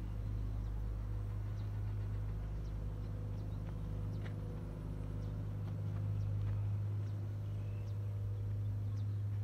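A steady low mechanical hum, like an engine running, with faint short high chirps scattered through it.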